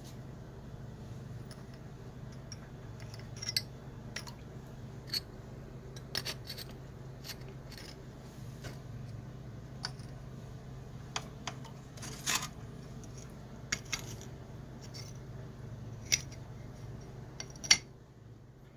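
Sharpening stones and their carrying case being handled and set down: a dozen or so irregular sharp clicks and clacks of hard objects, over a faint steady low hum.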